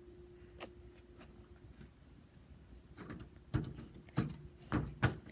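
A doorknob and door being worked by hand: a click, then a run of clicks and knocks from about three seconds in as the knob is turned and the door is forced, over a faint steady hum.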